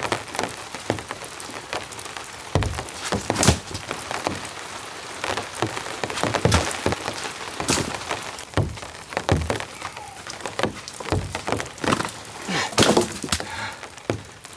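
Dead branches being dropped onto a woodpile: a string of separate sharp wooden knocks and cracks as the wood lands and knocks together, with rain falling throughout.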